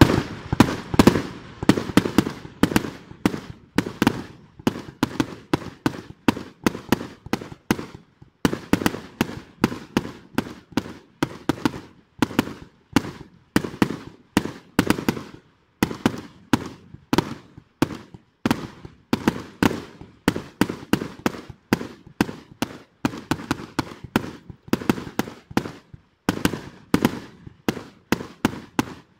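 Fireworks going off in rapid succession: sharp cracks and pops about three a second, with a couple of brief pauses, as small shells are launched and burst one after another.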